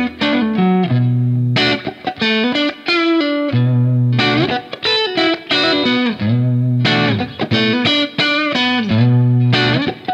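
Ibanez TOD10 electric guitar, its Fishman pickups set to a single-coil sound, played through a Marshall Studio Plexi amp sound: a repeating riff of picked notes and chords over a low bass note that returns about every two and a half seconds.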